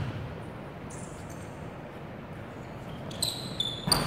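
Low hall ambience, then sneakers squeaking on the court floor about three seconds in, and the basketball striking the rim once near the end.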